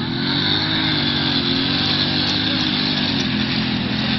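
Small motorcycle engine revving under load in deep mud, held high, its pitch rising and falling a little.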